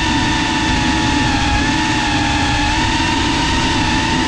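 FPV quadcopter's brushless motors and propellers whining steadily, the pitch dipping and rising slightly with throttle, heard from the camera riding on the drone, with a rushing rumble of wind and prop wash underneath.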